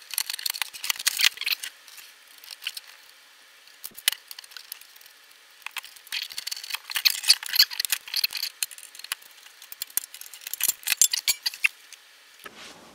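Sheet-metal ATX power supply case being taken apart by hand: bursts of light metallic clicks, rattles and scrapes as the cover and parts are shifted. There is a quieter stretch in the middle.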